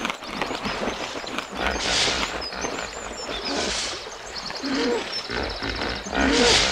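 Dubbed animal roars standing in for a roaring hippopotamus: breathy swells about two and four seconds in and another near the end, then a run of short pitched grunts about twice a second. Birds chirp and trill behind them.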